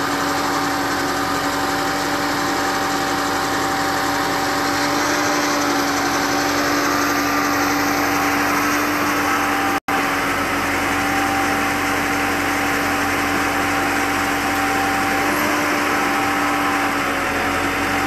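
Engine of a tracked boom lift running steadily, a constant drone with a steady hum and whine over it. The sound cuts out for an instant about ten seconds in.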